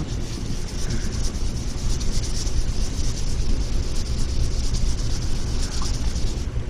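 Hand wet-sanding of car clearcoat with 1000-grit wet paper on a small pad, the paper rasping back and forth as a fine hiss, over a steady low rumble.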